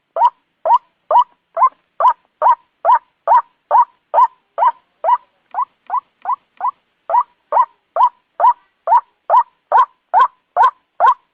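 White-breasted waterhen calling: a steady, even run of short, rising notes, about two a second, somewhat fainter around the middle.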